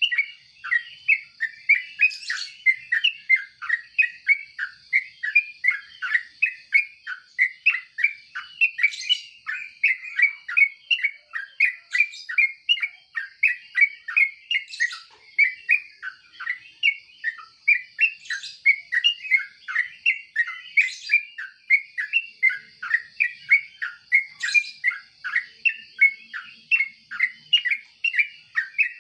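Yellow-vented bulbul singing: a steady run of short chattering notes, about three a second, with a sharper higher note every few seconds.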